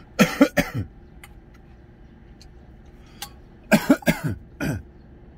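A man coughing: a quick pair of coughs at the start, then a run of about four coughs a little before four seconds in.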